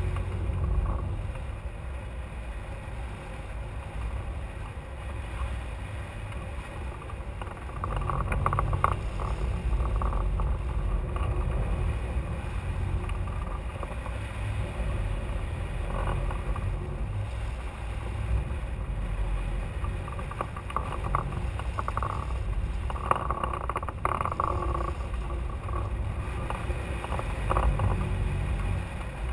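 Airflow over a hang glider in flight, heard as wind buffeting a camera mounted on the glider: a steady low rumble that swells and eases, with a few brief higher flutters.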